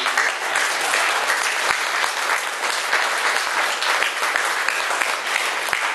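Audience applause: many people clapping at a steady level.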